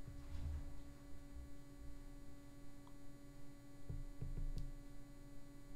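Low, steady electrical hum from the recording chain, with a few soft clicks about four seconds in, consistent with a computer mouse being used.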